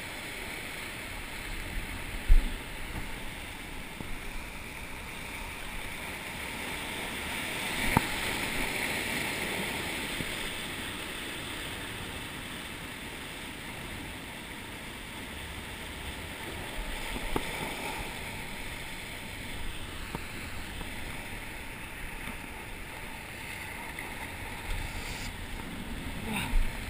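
Sea waves washing against coastal rocks in a steady rush that swells about eight seconds in. A sharp thump about two seconds in, and a smaller one around eight seconds.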